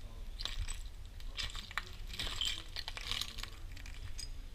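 Footsteps crunching over broken glass shards on paving, the glass clinking and grinding underfoot with each of about four steps.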